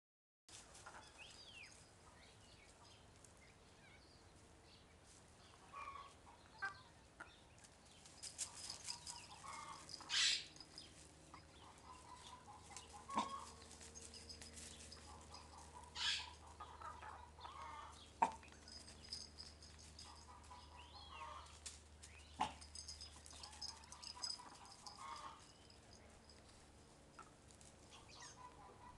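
Domestic hens clucking quietly on and off, with a few sharp clicks or knocks scattered through.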